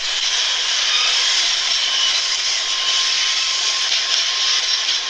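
Camera drone's propellers whirring: a steady, high hiss with a faint whine in it that neither rises nor falls.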